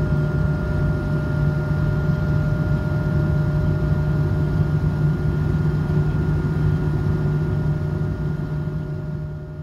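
Steady cabin noise of an Airbus A220-300 in flight, from a seat over the wing: the drone of its Pratt & Whitney PW1500G geared turbofans and airflow, with a strong low hum and a few faint steady higher tones. It begins to fade out near the end.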